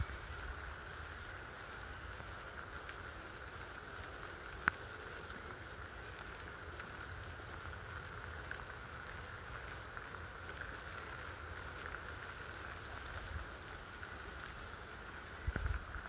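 Light rain falling steadily, an even soft patter, with one sharp click about five seconds in and a few low thumps near the end.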